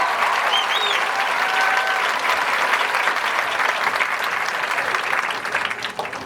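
Crowd in the stands applauding and cheering, with a few high whoops in the first second, dying down near the end.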